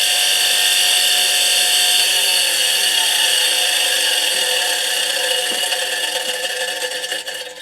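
Bench grinder with a wire brush wheel running at full speed: a steady whine with a rubbing noise from the wire brush catching on its guard. It fades out and winds down near the end.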